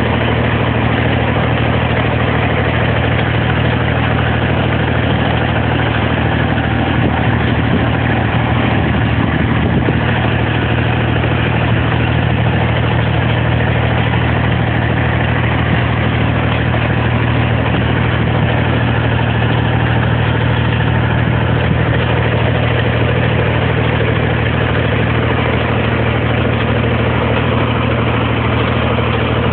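Tractor engine running at a steady speed, a loud, even drone that does not change.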